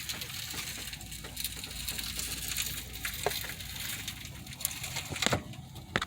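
Steady hiss with a few sharp clicks and knocks, the loudest near the end, from the front steering and suspension of a 1997 Honda CR-V turned to full left lock while a clunk is being tracked down.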